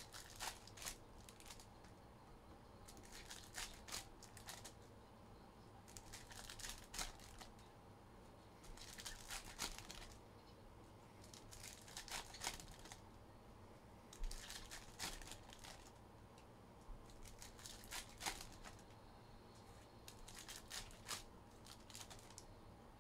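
Faint crinkling and tearing of trading-card pack wrappers as packs are ripped open one after another, about eight bursts roughly every three seconds.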